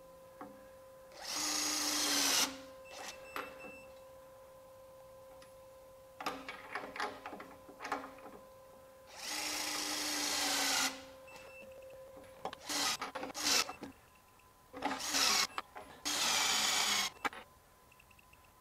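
HYTORC Lion battery torque gun tightening nuts to set torques, from 50 up to 200 foot-pounds. It runs in several bursts of one to two seconds, its motor whine falling slightly in pitch as each nut loads up. Short clinks and rattles come between the runs.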